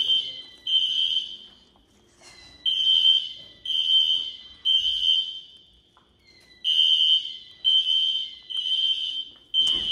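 Fire alarm horns sounding the temporal-three evacuation pattern: three loud, high horn tones about a second apart, then a pause, repeating.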